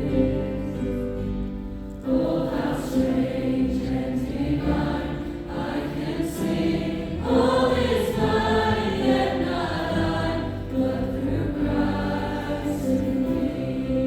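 A choir singing a worship song in sustained phrases, with new phrases entering every few seconds.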